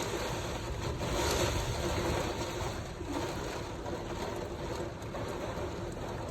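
Heavy rain pouring down with strong wind, a steady rushing noise that swells briefly about a second in.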